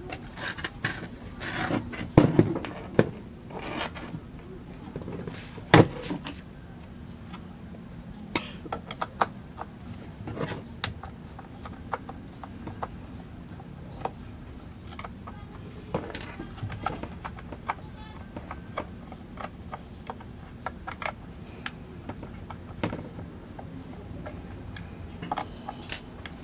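Irregular clicks, knocks and scrapes of an Alesis electronic-drum hi-hat control pedal being opened up by hand, with a few louder knocks in the first six seconds, over a faint steady hum.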